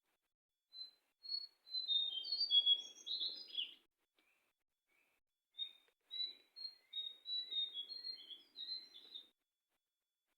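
A jongkangan bird singing two bouts of rapid, varied high chirps, each about three seconds long, with a short pause between them.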